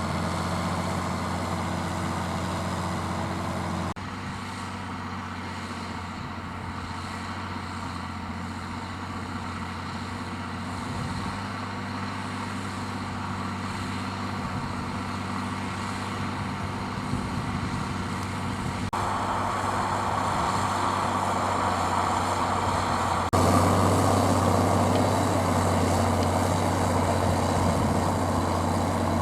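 Zetor Crystal 12145 tractor's diesel engine running steadily under load, pulling a five-furrow plough. The engine note changes abruptly three times, getting louder near the end.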